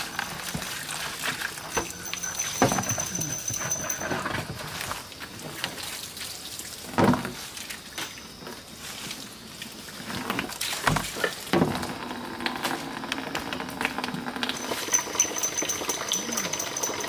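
Water pouring and splashing in a plastic basin as hands are washed in it, with scattered small knocks. A thin, high, steady whine comes in twice, and a short loud sound stands out about seven seconds in.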